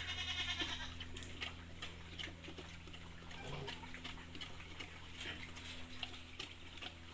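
A Large White sow eating from a plastic bucket: irregular soft clicks and smacks of chewing, over a steady low hum.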